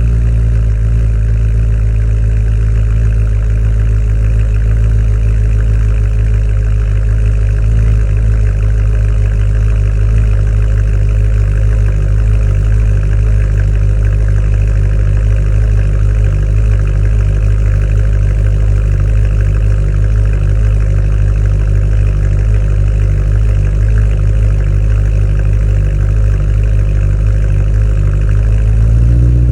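2011 BMW M3 (E90) S65 4.0-litre V8 idling steadily through a newly fitted stainless steel valved axle-back exhaust, with a deep, even exhaust note. The engine speed lifts slightly for a moment near the end.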